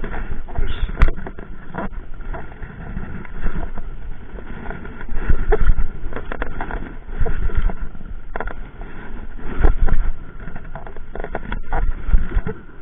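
Irregular knocking, rubbing and low wind rumble from a small rowing boat and the angler's gear while a hooked fish is reeled in on a bent baitcasting rod.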